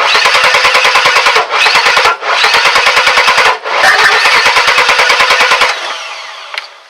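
Chevy S10's 4.3 V6 cranking on the starter in a fast, even rhythm without catching, with a few brief breaks, until it stops about five and a half seconds in. This is a no-start that sounds almost out of time, a fault the title traces to the distributor cap.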